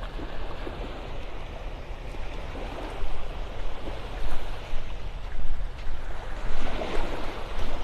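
Low ocean surf washing on the beach, with wind rumbling on the microphone; the sound gets louder and gustier about three seconds in.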